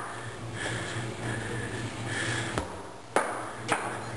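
A sledgehammer knocking in quick succession: three sharp knocks about half a second apart, the middle one loudest, starting about two and a half seconds in.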